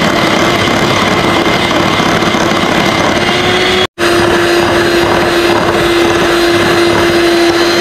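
Electric hand mixer running at a steady high speed, its beaters whipping instant coffee into a thick, creamy foam. The motor holds one steady pitch and cuts out for a split second about four seconds in.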